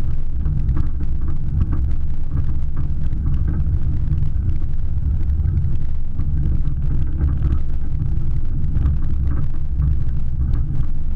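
Vehicle driving steadily along a dirt track: a constant low rumble of engine, tyres and wind.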